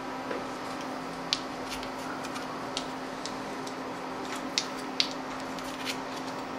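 Small wooden spoons clicking lightly against one another as they are gathered in the hand, about seven sharp ticks at uneven intervals, over a steady hiss with a faint hum.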